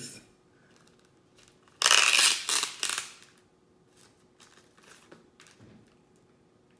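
Plastic wrap being torn and peeled off a molded plastic tray of mochi ice cream. A loud crinkling rip comes about two seconds in and lasts about a second, with two shorter tugs at its end, followed by a few faint clicks and rustles.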